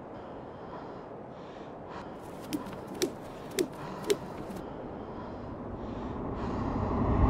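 Jump rope striking the ground, four sharp clicks about half a second apart, over a low steady background hiss; near the end a rising swell builds steadily louder.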